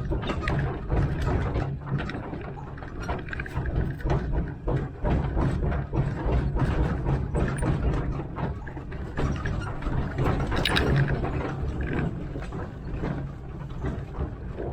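1927 Vulcan 0-4-0T narrow-gauge steam locomotive rolling along the track, with continual irregular clanking and rattling over a steady low rumble.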